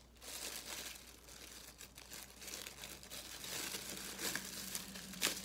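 Soft rustling and crinkling as game cards and their packaging are handled, with a sharper click near the end.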